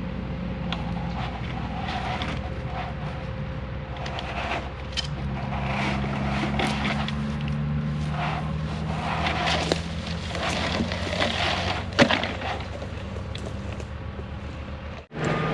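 Diesel engine of heavy equipment running steadily, its pitch stepping up about five seconds in, with scattered clicks and rattles and one sharp knock near the end.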